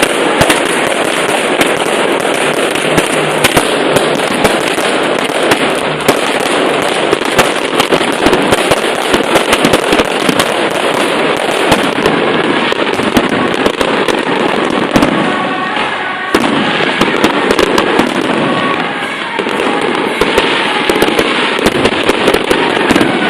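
Fireworks going off in a dense, continuous rapid crackle of pops and bangs, with no let-up.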